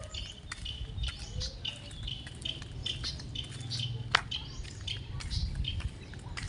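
Small birds chirping busily, a quick string of short high chirps, over a low rumble. A single sharp click comes about four seconds in.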